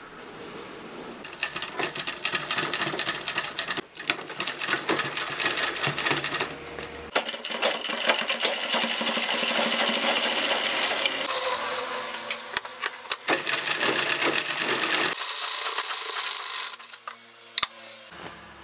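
Sewing machine stitching fabric in fast runs, a rapid even chatter of the needle. It starts about a second and a half in, breaks off briefly near four seconds, runs loudest and steadiest in the middle, and stops near the end.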